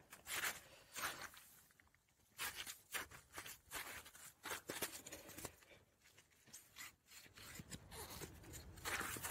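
Footsteps crunching through crusty wet snow and mud, in irregular crunches and scrapes a few times a second.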